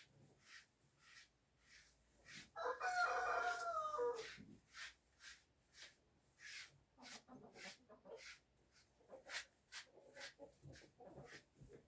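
A rooster crows once, about three seconds in, a single drawn-out call that drops in pitch at the end. Around it runs a steady rhythm of short hissing ticks, about two a second.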